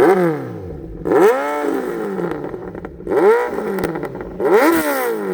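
Kawasaki Z900's inline-four engine with an Arrow titanium full-system exhaust, revved at a standstill. A held rev drops away at the start, then three quick throttle blips follow, each rising sharply and falling back toward idle.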